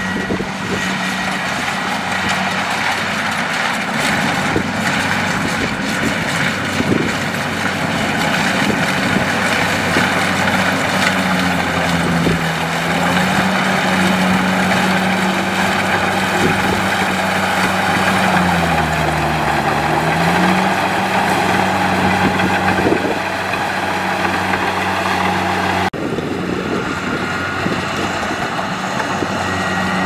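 Kubota DC70 Plus rice combine harvester running steadily while cutting and threshing, its diesel engine's pitch dipping briefly about twelve seconds in and again for a couple of seconds a little later.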